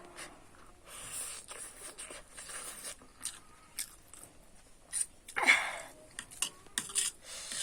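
A person eating instant noodles and boiled eggs close to the microphone: chewing with many short wet clicks and lip smacks, and one louder, longer noisy sound about five and a half seconds in.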